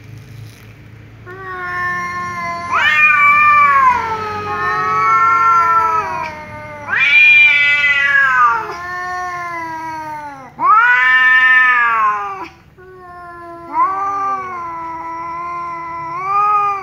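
A black-and-white tomcat and a ginger tabby yowling at each other in an angry standoff. They give four or five long, drawn-out, wavering calls in a row, each a couple of seconds long, rising and then falling in pitch and sometimes overlapping.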